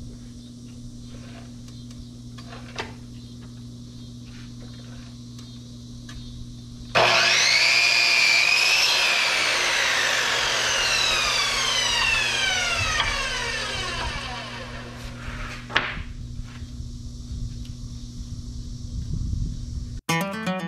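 Electric power saw squaring off the end of a rough-cut cedar board: the motor spins up with a rising whine about seven seconds in, cuts, then winds down with a falling whine over several seconds. Before it, only a low steady hum and a few faint knocks of handling.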